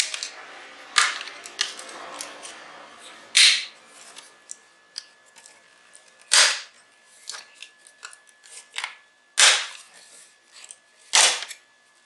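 Snap-fit clips of a GM Curve modular switch plate's plastic cover frame snapping loose as it is pried off the wall by hand: four loud sharp snaps a few seconds apart, with smaller clicks and rattles between.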